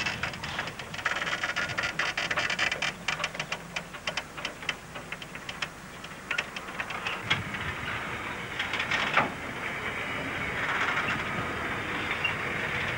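Railway freight wagons rolling and clanking: a rapid run of metallic clicks and knocks, two heavier bangs about seven and nine seconds in, then a steadier rolling noise.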